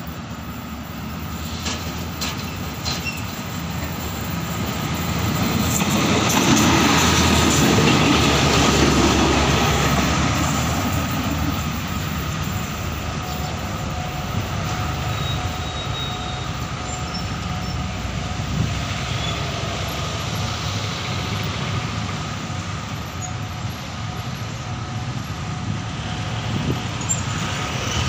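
State Railway of Thailand diesel-hauled train passing close by, rumbling over the rails and rising to its loudest about six to eleven seconds in, then easing off into steadier rail and wheel noise.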